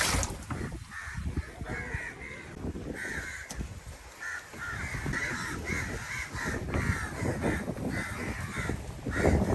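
Crows cawing over and over in a flurry of short calls, over a steady low rumble of background noise. A brief loud rush of noise comes right at the start.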